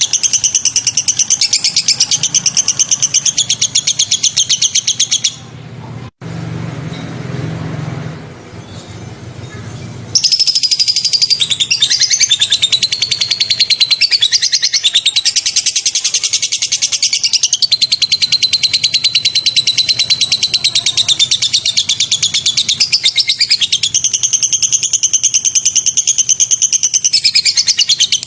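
Recorded songbirds giving loud, very rapid high-pitched trilling and chattering phrases, used as bird-song training material. The trilling breaks off for about five seconds in the middle, where only a quieter low rumble is heard, then starts again and runs on.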